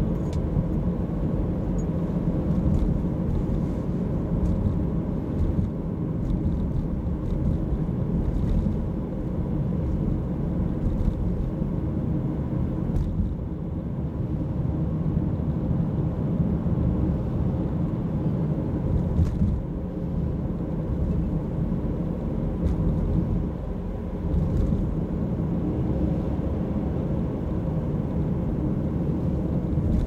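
Steady low rumble of a car's engine and tyres on the road, heard from inside the cabin while driving.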